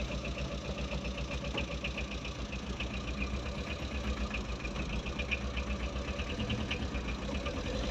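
Tata Ace mini truck engine idling, heard from inside the cab, with a steady low hum and a rapid, regular ticking.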